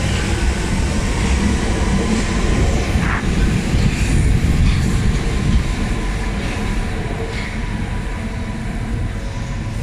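London Underground Central line 1992-stock train pulling out of the platform, a loud rumbling and rattling of wheels on rails with a faint steady motor tone. The sound eases off a little over the last few seconds as the train moves away into the tunnel.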